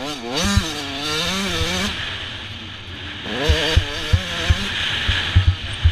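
Motocross bike engine revving up and down as the throttle is worked over the bumps, with wind noise and knocks from the rough track. The engine runs hardest in the first two seconds and again from about a third of the way in to the middle.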